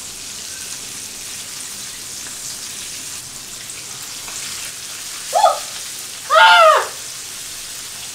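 Whole flour-coated tilapia deep-frying in hot oil, a steady sizzle and crackle. About five seconds in, a man's voice gives two short cries as hot oil splashes onto his hand.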